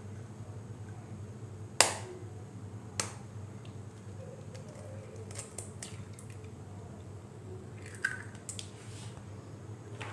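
A hen's egg being cracked by hand: a sharp tap of the shell on a hard edge about two seconds in, a lighter tap about a second later, then small clicks as the shell is broken apart over a ceramic bowl. A low steady hum runs underneath.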